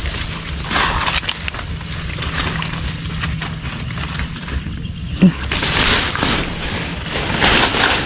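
Leaves and stems rustling and brushing as someone pushes through dense undergrowth, in bursts, with a short low sound about five seconds in.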